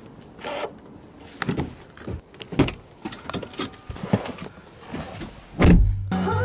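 Scattered clicks and knocks as an electric car's charging plug is released and pulled from the charge port and the port cover is handled, then the car door is opened and shut with one loud, heavy thump near the end.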